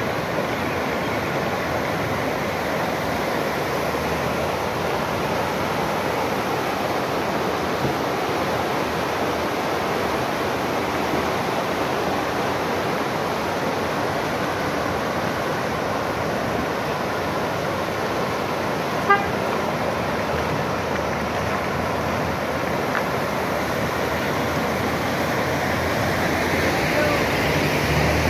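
Steady rushing of a muddy river in full flood, with one short sharp sound about two-thirds of the way through.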